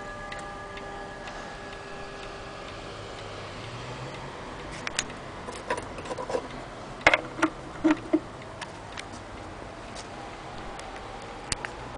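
Mechanical pendulum wall clock ticking, with a run of sharper clicks in the middle. A ringing note left over from the clock's chime fades away over the first two seconds.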